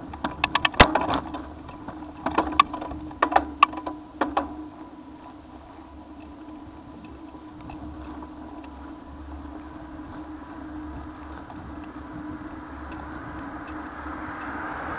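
Bicycle rattling and clattering over bumps in the pavement, a quick run of sharp clicks and knocks in the first few seconds over a steady riding hum. A rushing noise swells near the end.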